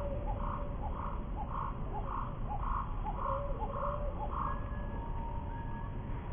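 A regular run of about eight short animal calls, roughly two a second, that stops about four and a half seconds in, over a steady low rumble.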